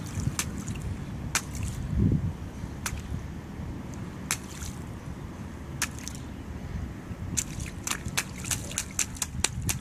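A toddler's sneakers stomping and splashing in a shallow puddle on blacktop: short sharp splashes and drips at irregular intervals, coming quickly one after another near the end. A steady low rumble runs underneath, with one louder low thump about two seconds in.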